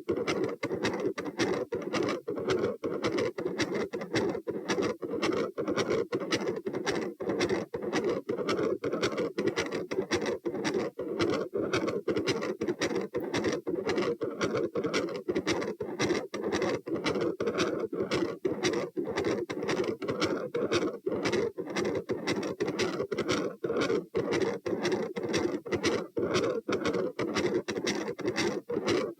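Heart heard through a stethoscope: a continuous machinery murmur that runs through the heartbeats without clear gaps, so S1 and S2 no longer stand apart. The uploader takes it as consistent with a patent ductus arteriosus, though an aortopulmonary window or a collateral vessel could also give it.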